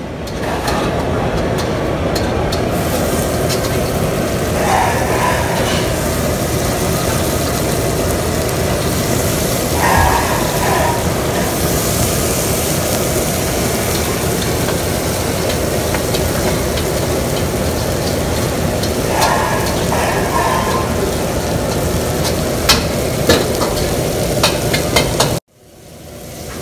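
Masala-marinated fish pieces frying in hot oil in a nonstick pan, a steady sizzle with a few sharp ticks near the end. The sound cuts off abruptly just before the end.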